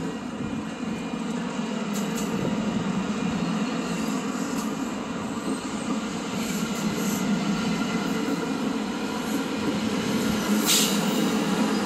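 Bilevel commuter train coaches rolling past on the rails in a steady rumble that slowly grows louder, with one short sharp high-pitched sound about three-quarters of the way through.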